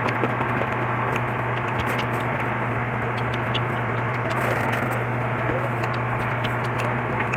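A steady hum and hiss, like a running electric fan or motor, with small scattered clicks and scrapes of eating utensils on plates over it.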